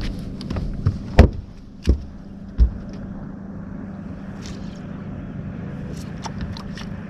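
Steady hum of a boat motor, with three dull thumps about one, two and two and a half seconds in, and scattered light clicks.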